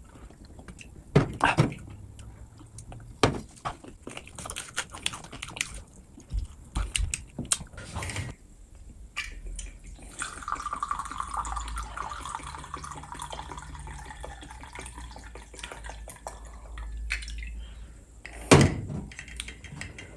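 Close-up wet clicks of eating over the first several seconds. Then whisky is poured from a bottle into a stemmed cut-glass glass, a steady trickling fill lasting several seconds about halfway through. A sharp knock comes near the end.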